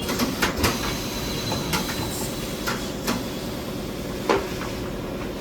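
Tyre-shop work noise: a handful of sharp clicks and knocks at irregular intervals, the loudest about four seconds in, over a steady background hum.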